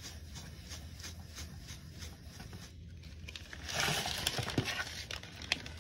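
Hands rubbing and turning an old spincast fishing reel inside a plastic zip bag: faint rhythmic scratching, about three or four strokes a second, then louder crinkling of the plastic bag from about four seconds in.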